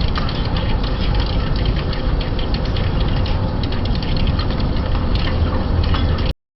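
Metal lathe running while turning a steel shaft, a steady machine hum with scattered small crackles over it. The sound cuts off abruptly near the end.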